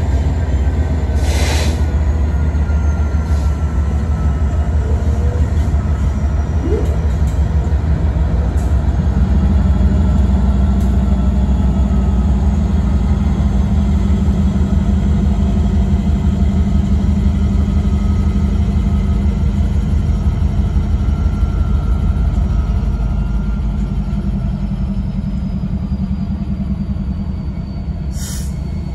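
BNSF diesel-electric locomotives running as they move through the yard, a loud steady engine rumble. It grows stronger about a third of the way in and fades over the last several seconds as the units move off.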